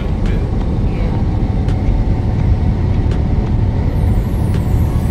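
Steady low drone of a semi-truck's engine and tyres at highway speed, heard inside the cab, with a few faint ticks and rattles.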